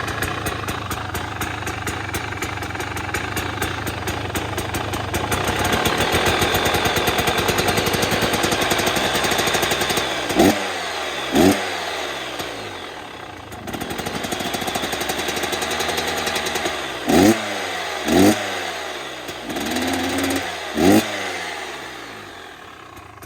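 2023 KTM 250XC two-stroke dirt bike engine running through its stock expansion chamber and muffler. It holds at raised revs for a while, then gives five short, sharp throttle blips in the second half, falling back to idle between them. It settles lower and quieter near the end.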